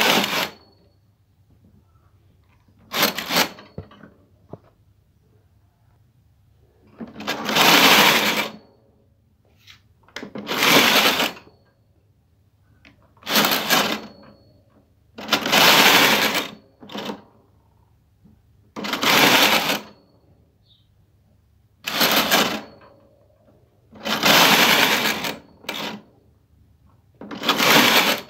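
Brother KH-831 punch-card knitting machine carriage pushed back and forth across the needle bed, knitting rows of a two-colour punch-card pattern. Each pass is a noisy mechanical sweep about a second long, ten passes with short pauses between them.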